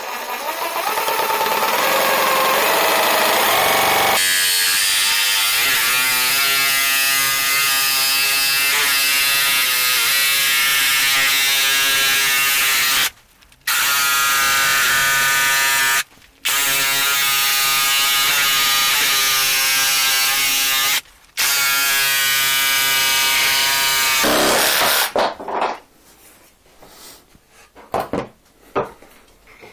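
Bosch EasySaw 12 cordless 12 V multi-purpose saw, fitted with a fine scrolling blade, running and cutting curves in a wooden board. The motor's whine is steady, sped up from about four seconds in, and breaks off briefly three times. It stops near the end, and a few light knocks follow as the saw is put down.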